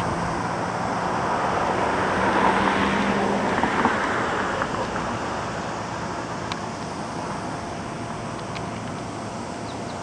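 Rushing noise of a passing vehicle, swelling to a peak a few seconds in and then slowly fading, over a steady low hum that stops about three and a half seconds in.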